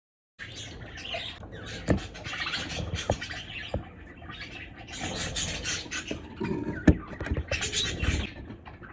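A flock of budgerigars chattering and squawking, cutting in about half a second in, with a few sharp knocks, the loudest about seven seconds in.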